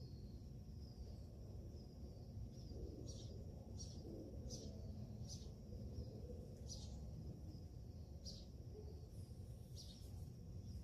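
A small bird chirping, about eight short high chirps spaced roughly a second apart, starting about three seconds in, over a faint steady low hum.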